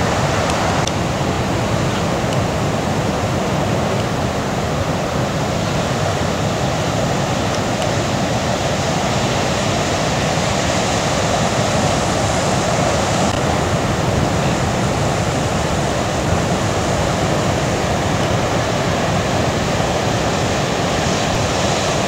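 Breaking ocean surf, a steady wash of noise with no let-up.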